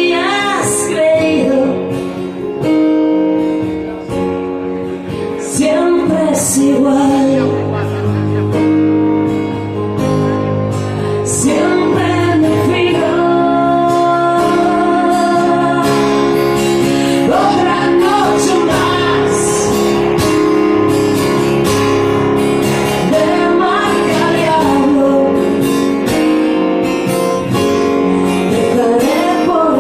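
Live band playing a song, with singing over guitar.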